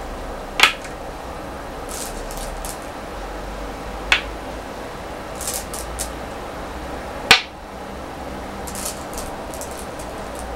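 Go stones placed on a wooden Go board: three sharp clacks a few seconds apart. Between them come softer clinks of stones being picked from the bowl.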